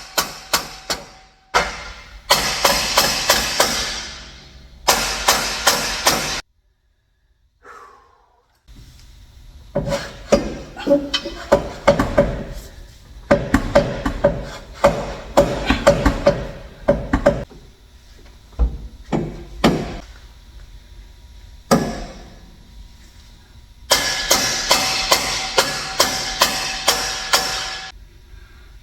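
Background music with a rhythmic percussive beat, broken by abrupt cuts and a short silence.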